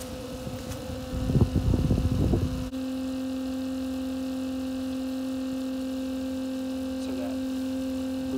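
SEAFLO DC macerator pump motor running with a steady electric hum while the black tank drains through it. For the first few seconds a rough, noisy rumble covers the hum, then it stops abruptly and the even motor hum is left on its own.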